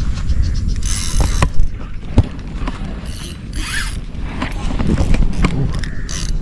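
Spinning reel being cranked in spells against a hooked fish, with a few sharp clicks, over a steady low rumble on the microphone.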